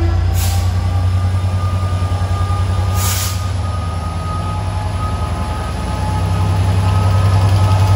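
Class 67 diesel locomotive's EMD two-stroke V12 engine idling with a steady low rumble, with two short bursts of hissing air about half a second and three seconds in.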